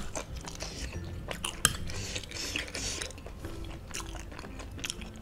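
Close-miked chewing of spicy seblak and boneless chicken feet: wet mouth sounds with scattered short, sharp clicks.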